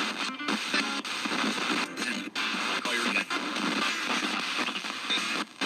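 Ghost box output: an analog FM radio tuner swept by a random voltage generator, jumping between stations so that chopped fragments of broadcast music and voices come through mixed with static. The sound cuts out abruptly several times for a split second as the tuning jumps.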